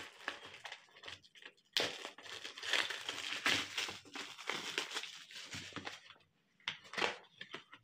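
Plastic shrink-wrap crinkling and tearing as it is peeled off a cardboard box: several seconds of dense crackling, then a few short crackles near the end.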